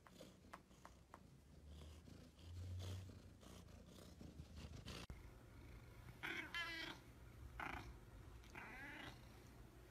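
Domestic cat making three short warbling chirps, each with a fast quaver, in the second half. Before them come a few faint clicks and a low thud.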